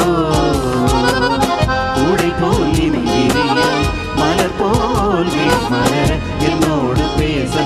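Live band playing a Tamil film song: a wavering melody line over a steady drum beat.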